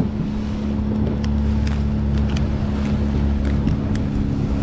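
Fishing boat's engine running steadily at trolling speed, a constant low drone, with a few light metallic clicks from pliers being handled.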